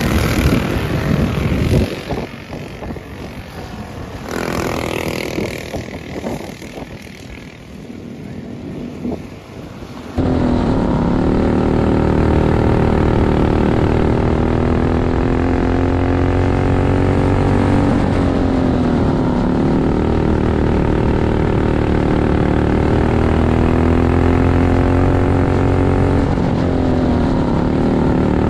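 Racing kart engines going past at speed, fading to a wavering drone as they move off around the dirt oval. Then, after a sudden cut, one kart's engine is heard loud from on board, held high, its pitch dipping and rising again twice through the turns.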